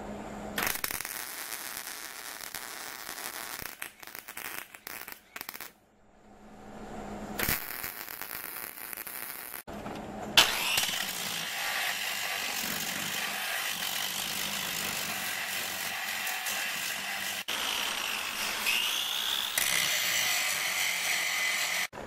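Stick (arc) welder crackling as it lays welds on steel: several short runs that start and stop sharply in the first ten seconds, then one long unbroken run of about ten seconds.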